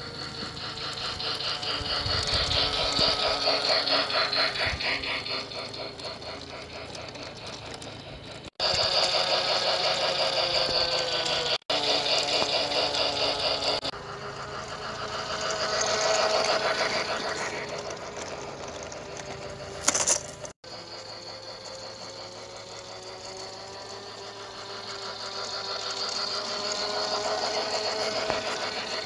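Toy train locomotive running on plastic track: a small electric motor whining with a fast, even clicking from its gears and wheels. It grows louder and fades away again several times, and cuts off abruptly and restarts a few times along the way.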